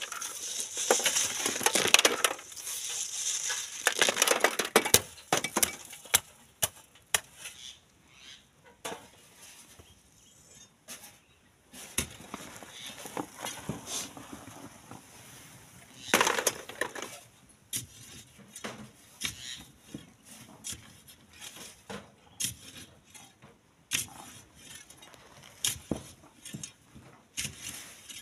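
Stones and sand rattling and scraping over a hand-held wire-mesh sieve for the first few seconds. Then scattered clinks and knocks of a digging tool working at a bank of sand and stones, with a short burst of loose material falling a little past the middle.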